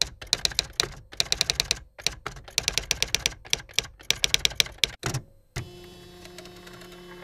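Typewriter keys clacking in quick bursts of several strikes with short pauses between them. About five seconds in, the clacking stops and gives way to a steady hum with a low tone.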